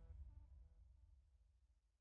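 Near silence: the last faint notes of the electronic outro music fading away.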